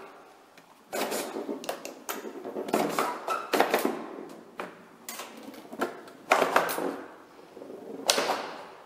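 Homemade cardboard pinball machine in play: the ball and flippers give a string of sharp, irregular knocks and clacks, about one every second or so.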